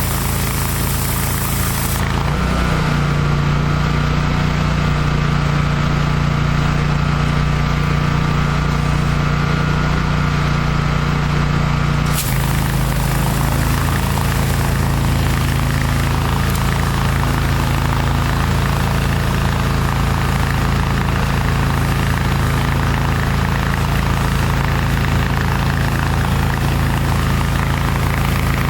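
Air-cooled 30 hp Kohler engine of a hot water pressure washer running steadily. Its pitch steps up slightly about two seconds in and drops back about twelve seconds in.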